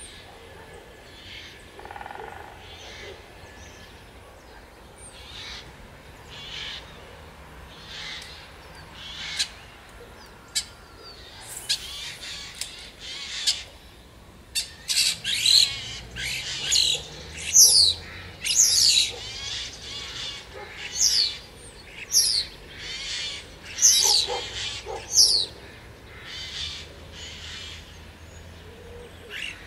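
Songbirds singing: a run of short, high notes, many of them quick downward sweeps, repeated over and over and loudest through the middle stretch.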